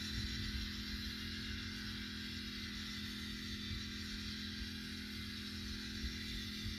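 A small engine runs steadily with an even hum, under a fluttering low rumble of wind on the microphone.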